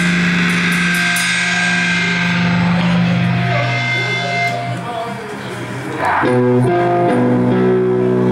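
Amplified electric guitars and bass holding long ringing chords. The sound dips around five seconds in, then a new chord comes in about six seconds in and shifts pitch twice in quick succession.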